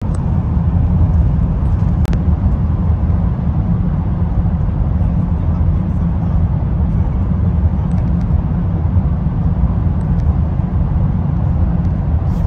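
Steady low rumble of road and tyre noise from a car cruising at constant speed, heard from inside the cabin. A brief small click comes about two seconds in.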